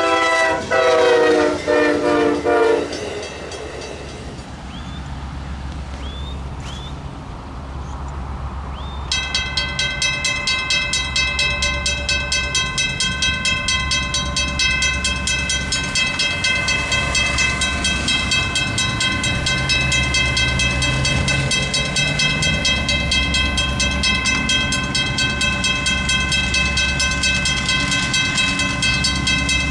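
A train horn sounds a chord that ends about three seconds in, followed by a quieter low rumble. From about nine seconds a mechanical railroad crossing bell rings with rapid, even strokes over a low rumble.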